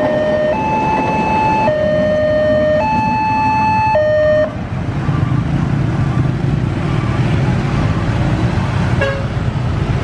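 Level crossing warning alarm from the loudspeaker on the crossing-sign pole: a two-tone high-low signal alternating about once a second, which cuts off about four and a half seconds in once the train has cleared and the barriers lift. After it, the engines of waiting motorcycles and cars run as traffic starts across the tracks.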